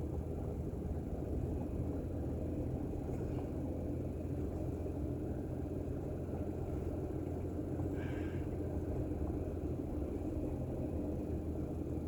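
Car driving slowly on a snowy, icy highway, heard from inside the cabin: a steady low drone of engine and tyres.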